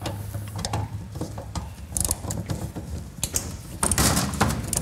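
Hand tools working on metal parts in a car's engine bay: irregular clicks and clanks, with a denser, louder clatter about four seconds in.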